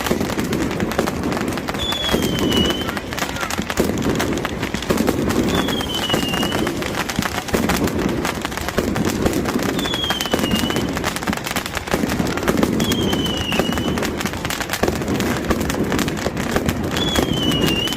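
Fireworks and firecrackers crackling and popping densely and without a break, over the noise of a crowd. A short falling whistle sounds about every three to four seconds.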